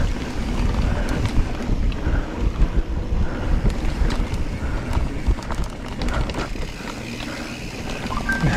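Giant Trance full-suspension mountain bike rolling along dirt singletrack: a steady rumble of knobby tyres on dirt with frequent small clicks and rattles from bumps. Wind buffets the microphone.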